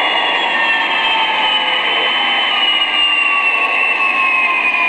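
Lionel O-scale diesel locomotive's electric motors and gears whining steadily over a rolling, running noise, the whine's pitch slowly falling.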